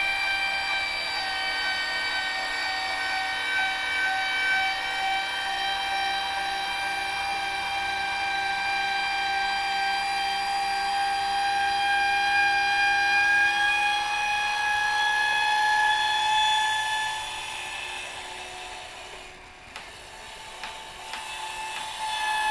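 Electric motor of the ceiling-mounted charger board's lifting arm whining steadily as it lowers the board, with several tones whose pitch creeps slightly upward. The whine fades about three-quarters of the way through and picks up again near the end.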